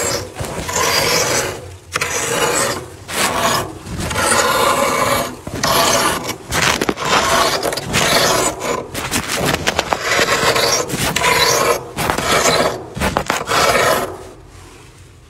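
Thick freezer frost being scraped away with a thin tool: a run of crunchy scraping strokes, each about one to two seconds long with short breaks between, stopping about a second before the end.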